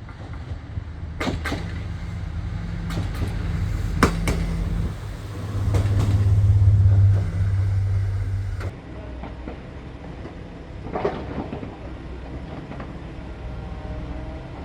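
BE220 "BIGEYE" track-inspection diesel railcar running through the station: a low engine drone that swells to its loudest a little past halfway, then drops off sharply, with sharp wheel clacks over the rail joints now and then.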